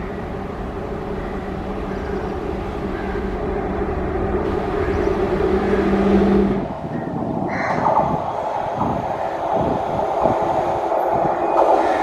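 Indian Railways WAG-5 electric locomotive approaching with a steady two-note hum over a rumble that grows louder. About seven seconds in the sound changes abruptly to a passing train's rumble, with wheels thumping several times over rail joints.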